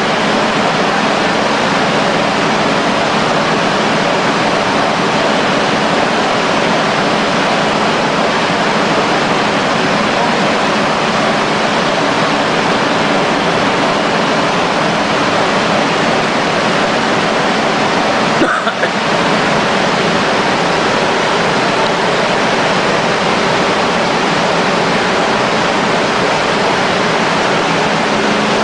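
Roto-Flex plastic-film printing press running steadily, a loud even machine noise with a faint hum, as printed milk-pouch film winds onto rolls. There is one brief break in the noise about two-thirds of the way through.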